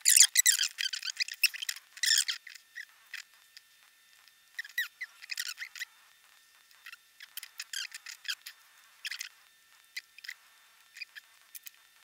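Small plastic parts of an MP3 player, its circuit board and black plastic back case, being handled and fitted together. A quick flurry of thin, scratchy clicks and scrapes in the first two seconds is followed by scattered light clicks.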